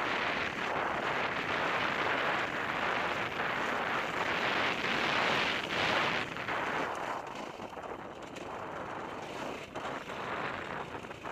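Dirt bike engine running, heard as a dense rough noise mixed with wind buffeting on the helmet camera's microphone. It is louder for about the first six seconds, then eases off.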